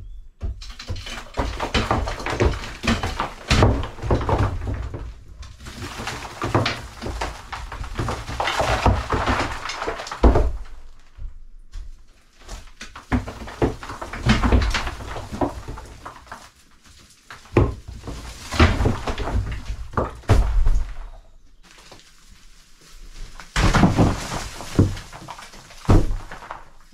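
A rake scraping and dragging through dry straw, twigs and rubble on a debris-covered stone-house floor, in irregular crackling strokes a second or two long with short pauses between them.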